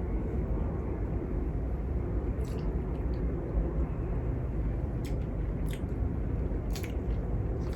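Eating sounds of a seafood boil eaten by hand: chewing, with a few sharp clicks scattered through. A steady low rumble runs under it.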